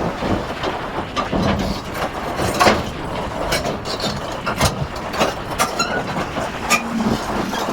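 Excavator working while loading, its engine running under a stream of irregular knocks and clanks, several of them sharp and loud.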